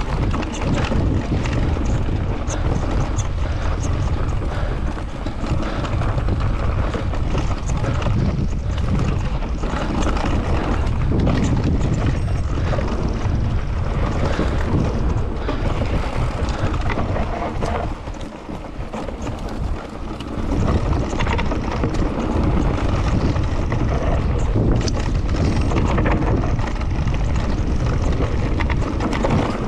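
Wind rushing over a bike-mounted action camera's microphone during a fast mountain-bike ride on dirt singletrack. Tyre noise on the dirt and rattles and knocks from the bike over bumps run underneath. It eases for a couple of seconds about two-thirds through.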